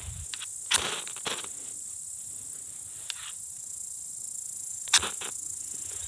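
Knife spine scraped down a mini ferrocerium rod: a few short, sharp rasping strikes, two close together near the start and one near the end. Each strike throws sparks onto the wood shavings, which catch fire.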